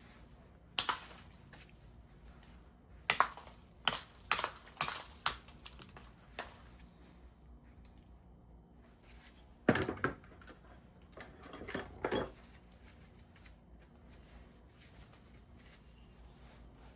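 Flintknapping: short, sharp clinking knocks of stone on flint as a biface's edge is worked for thinning flakes. A quick run of four or five knocks comes about three seconds in, and a couple more near ten and twelve seconds.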